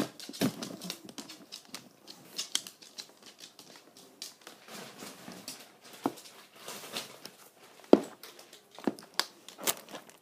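Plastic packaging crinkling and rustling in irregular bursts, with scattered clicks and a sharp knock about eight seconds in.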